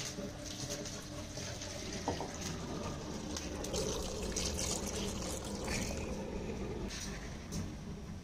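Water poured from a clay pot into a metal pan, splashing as it fills the pan. The pour runs for about three seconds from midway and stops abruptly near the end.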